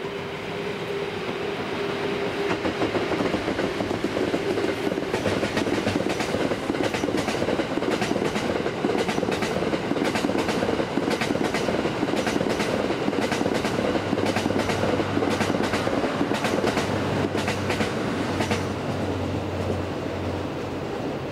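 EF81 electric locomotive hauling a rake of E26 series sleeper coaches past, with a steady hum at first. Then come the coaches' wheels clicking steadily over the rail joints, easing off near the end as the last coach goes by.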